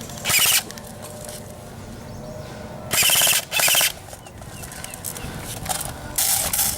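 Airsoft electric gun firing short full-auto bursts, each a fast rattle of motor-driven shots lasting about half a second: one near the start, two in quick succession around the middle, and one near the end.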